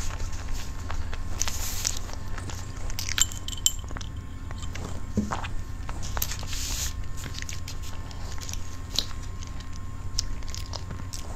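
Close-miked mukbang eating sounds: a paper tissue and the cake's paper collar rustling twice, small clicks of a plastic fork, and soft chewing of cake, over a steady low microphone hum.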